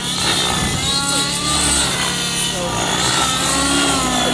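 Nitro glow-engine RC model helicopter in flight: the engine and rotors run with a high-pitched note that wavers up and down as the helicopter manoeuvres.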